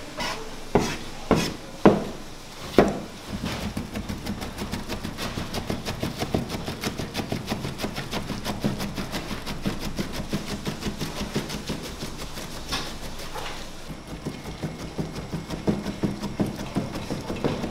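A large cleaver chopping lahmacun topping of minced meat, walnuts and onion on a chopping board: a few heavy single chops, then rapid, steady chopping at several strokes a second.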